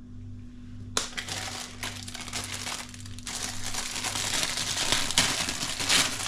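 A packet being handled and opened, rustling with many small crackles. It starts suddenly about a second in and gets louder toward the end.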